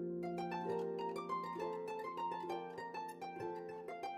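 Background music: a quick run of plucked string notes over a held low note.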